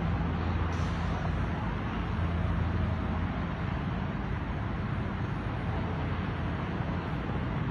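Steady rumble of busy city highway traffic heard from high above, with a low steady hum that fades out about three seconds in.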